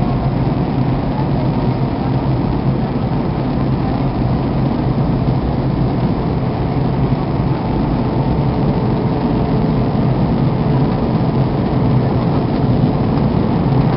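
Airbus A320 cabin noise on approach, heard from a window seat: a steady low roar of the engines and airflow, with a faint steady whine above it.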